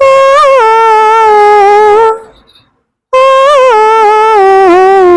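A woman's voice imitating the snake-charmer's been tune, in two long reedy, nasal phrases that each wobble and then slide a little lower in pitch, with a short break about two seconds in.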